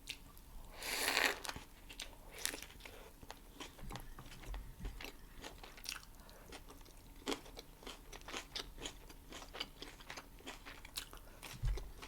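Close-miked eating of a homemade plant-based burger: chewing with many small wet mouth clicks, and a louder crunching burst about a second in.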